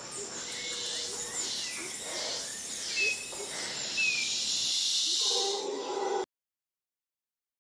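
Woodland ambience: a steady high hiss of insects with a couple of short chirps, cutting off to dead silence about six seconds in.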